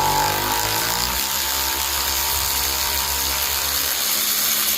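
Cordless electric ratchet motor running with a steady whine under load as it works to break loose a nylon lock nut torqued to 45 foot-pounds. It struggles at first, and its pitch shifts about a second in.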